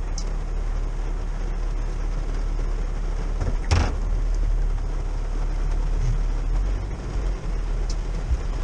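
Steady rumble inside a pickup's cab with its engine running in heavy rain. A single sharp knock about four seconds in is the loudest sound.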